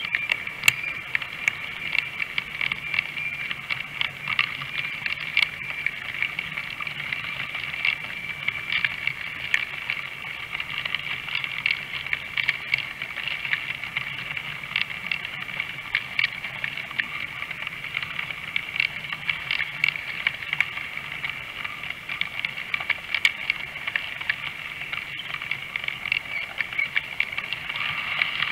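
Model train running along the layout track: a steady high whine with rapid, irregular clicking of the wheels over rail joints and points.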